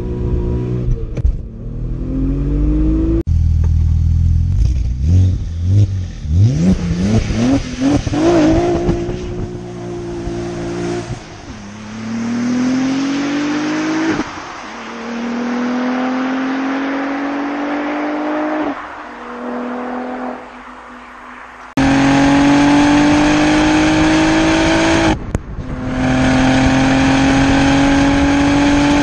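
Audi RS4 B5's 2.7-litre twin-turbo V6 accelerating hard through the gears: the revs climb steadily and drop back at each upshift, over several clips joined by sudden cuts.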